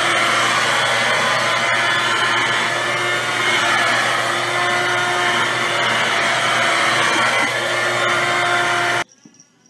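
Handheld vacuum cleaner running steadily, its nozzle moving over a cat's fur: a loud, even motor whir with a steady whine, cutting off suddenly about nine seconds in.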